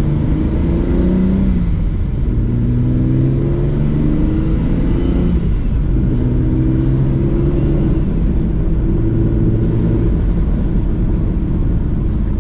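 Nissan Skyline R32 GT-R's 2.6-litre inline-six, running a big single BorgWarner turbo in place of the factory twins, heard from inside the cabin while driving under load. The engine note climbs and falls back several times.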